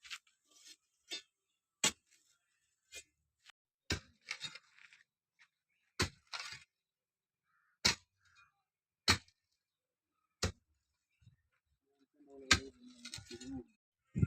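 A series of sharp, separate clicks or taps, one every second or two, some trailed by a faint high hiss, with a short busier stretch of lower sound near the end.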